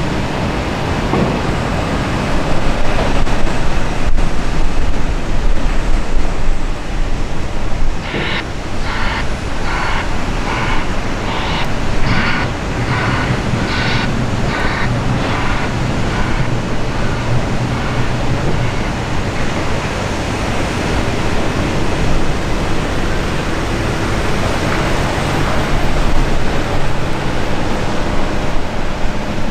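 Diesel engines of heavy lorries and a Volvo L180H wheel loader running at a beet pile, with a reversing alarm beeping about two times a second for around seven seconds, starting about eight seconds in.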